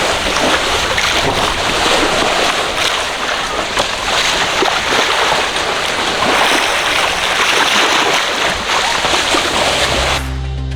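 Sea water rushing and splashing along a sailing yacht's hull as it moves through waves. Background music comes in near the end.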